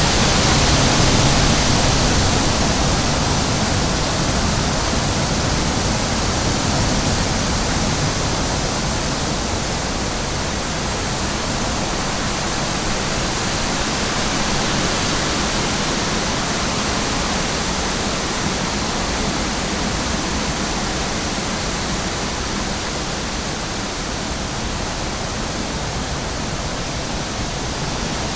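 Steady, even rushing noise of a nature ambience, loudest about a second in and then holding level with slow, gentle swells.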